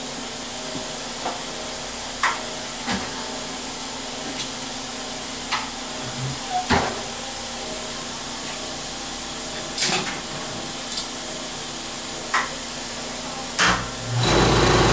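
A few short clicks and knocks over a steady hiss as a flask is taken from the burnout kiln with steel tongs. About 14 s in, the vacuum pump of the Master-Cast investment/vacuum casting table is switched on and starts running with a steady hum, pulling the vacuum for the cast.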